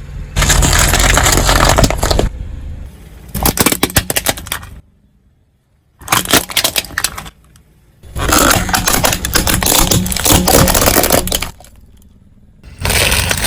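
Brittle objects cracking and crunching as a car's tyres roll over and crush them: about five separate bursts of breaking, the longest about three seconds, with a brief silence a little before the middle.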